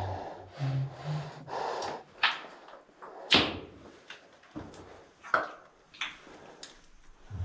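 Boots wading through ankle-deep thick, sticky oil: about four short, sharp steps roughly a second apart.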